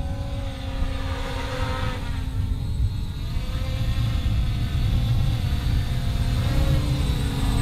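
A small sport quadcopter's electric motors and propellers whine steadily over a low rumble, their pitch drifting with throttle and stepping up near the end. The copter sounds noisier than usual.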